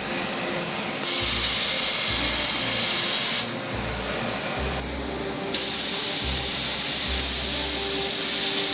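Automatic air spray guns hissing as they spray coating onto spinning frying pans. The hiss comes in bursts: one from about a second in to past three seconds, and another from about five and a half seconds on.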